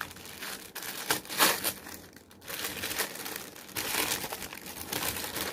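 Black wrapping crinkling and rustling as it is pulled open by hand, in irregular rustles with a brief lull about two seconds in.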